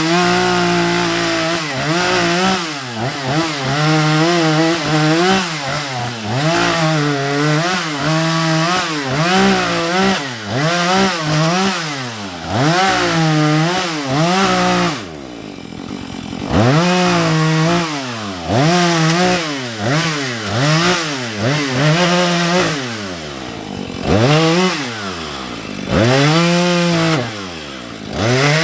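Husqvarna 435 two-stroke chainsaw cutting into a tree, its engine pitch rising and falling over and over as the throttle is worked. It drops briefly to a lower, quieter running about halfway through, then revs up and cuts again.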